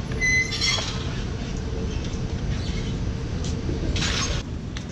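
Metal squealing from a two-tier bicycle parking rack's upper tray as it is pulled out and tilted down with a bicycle on it, a few high tones together in the first second. A short clatter about four seconds in as the bicycle comes off the rack, over a steady low rumble.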